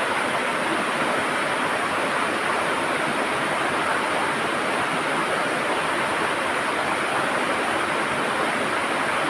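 River water rushing and gurgling over stones, a steady, even flow.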